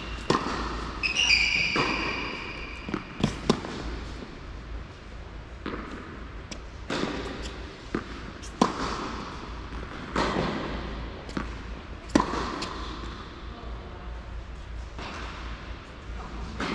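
Tennis ball struck by rackets and bouncing on an indoor hard court during a rally: sharp pops every second or so, echoing in the large hall. Sneakers squeak briefly about a second in.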